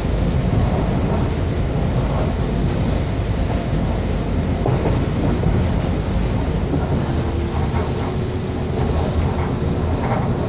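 Train running along the track, heard from inside a moving carriage: a steady, loud rumble of wheels on the rails.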